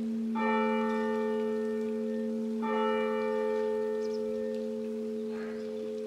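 A church bell striking twice, a little over two seconds apart. Its low hum rings on steadily between and after the strokes.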